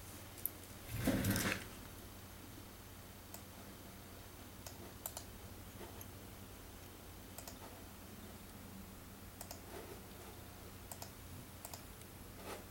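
Scattered clicks of a computer mouse and keyboard, with a brief louder rustle about a second in, over a faint steady hum.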